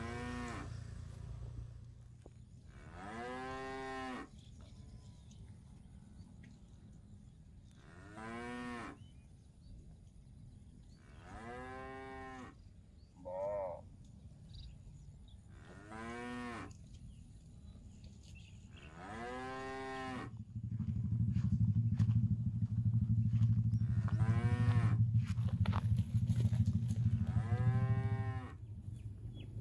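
Cattle mooing again and again: about nine calls, each roughly a second long, a few seconds apart, one of them shorter and higher-pitched. From about two-thirds of the way in, a steady low rumble underneath becomes the loudest sound for several seconds, then stops.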